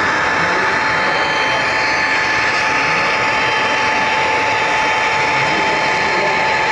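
HO scale model train running along the track, picked up close by an on-board camera: a steady whirring hiss of motor and wheels on rail, with a constant whine over it.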